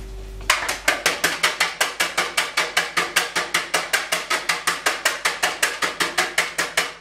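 A metal scraper rapidly rapping an upturned polycarbonate praline mold, about five sharp knocks a second, to shake the excess chocolate out and leave thin chocolate shells. The knocking starts about half a second in and runs on evenly.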